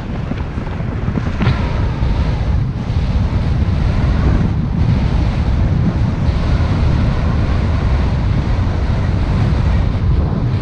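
Wind buffeting the microphone of a camera mounted on the outside of a moving car, over the steady rumble of the car and its tyres on the road.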